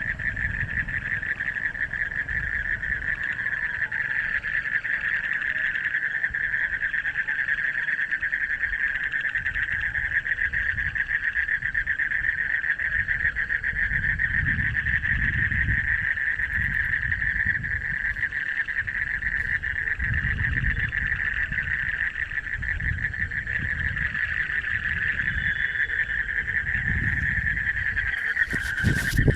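A frog chorus calling without a break: a dense, fast-pulsed trill that stays level, with occasional low rumbles underneath.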